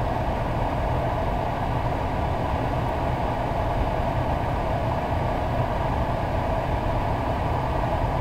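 Steady interior noise of a car, its engine idling with the ventilation fan running: an even low rumble and hiss with no breaks.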